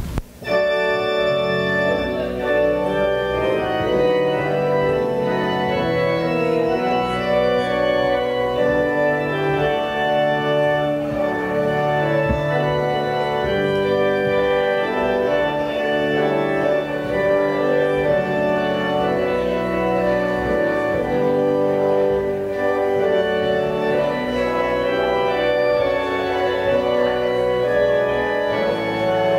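Church organ playing the postlude: sustained chords of held notes that start just after the closing 'Amen' and go on steadily.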